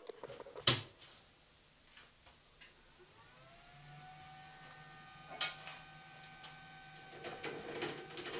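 A sharp click, then a faint steady electric hum with a whine that rises and settles about three seconds in. Near the end come light metallic clicks and taps as a metal bar is handled at a lathe chuck.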